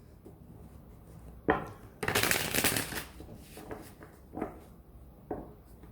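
Tarot cards being shuffled: a sharp slap of cards about a second and a half in, a fluttering run of cards lasting about a second, then a few softer slaps.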